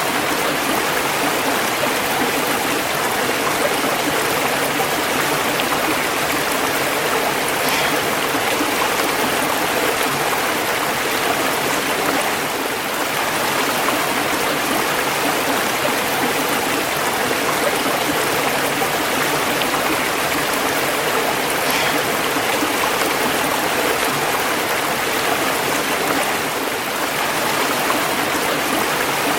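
Steady rushing of running water over rocks, a stream or small waterfall, even and unbroken.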